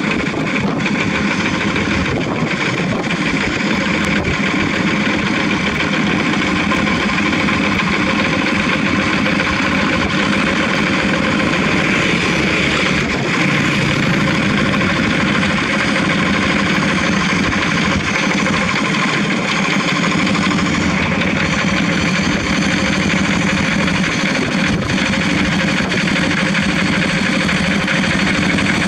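Several Kubota single-cylinder diesel engines of two-wheel walking tractors running together at a steady idle, an unbroken loud engine drone.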